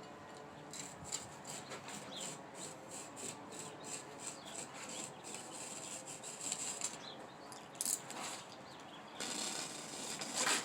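Box cutter blade cutting and scraping through a mattress's fabric cover in a quick series of short rasping strokes, with a louder rough stretch near the end.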